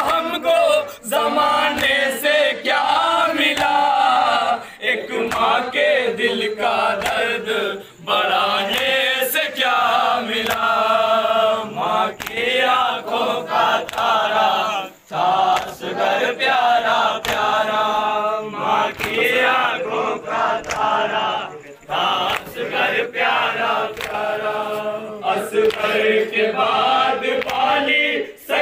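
Group of men chanting a Shia noha (lament) in chorus, with chest-beating (matam) slaps under the chant.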